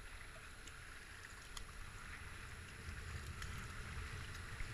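Rushing river water around a kayak, with small splashes from the paddle and a low rumble of wind on the boat-mounted microphone; the rush of the rapids grows louder toward the end as the boat nears the white water.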